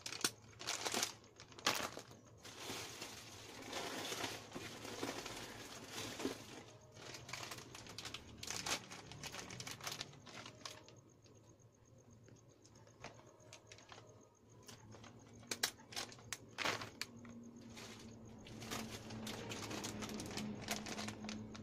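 Plastic packaging and snack packets crinkling and rustling as they are handled, in irregular crackles that are densest in the first several seconds and sparser later.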